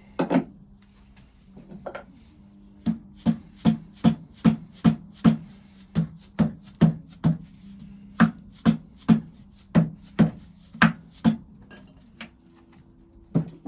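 Repeated hammer blows on metal, about two to three a second in three runs with short pauses between, working a seized part of a 1921 Lister TM stationary engine free.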